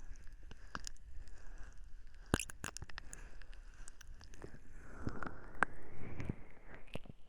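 Close-up ASMR touch sounds on a binaural microphone: irregular soft crackles, clicks and scratches. A dense cluster comes about two and a half seconds in, and more come around five to six seconds.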